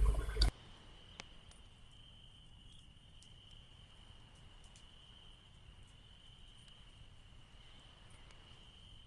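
A louder sound cuts off about half a second in. What remains is faint crickets chirring as one steady high note, with a few sparse soft clicks.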